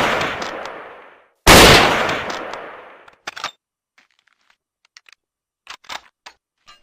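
Finnish M39 Mosin-Nagant bolt-action rifle firing: the echoing tail of one shot dies away, a second loud shot comes about a second and a half in and rings out for over a second, then a string of short metallic clicks follows as the bolt is worked.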